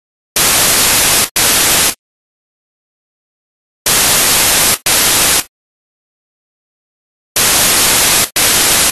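Loud bursts of white-noise static, switched on and off abruptly with dead silence between. They come in pairs, a burst of about a second followed closely by a shorter one, and the pairs repeat about every three and a half seconds, three times.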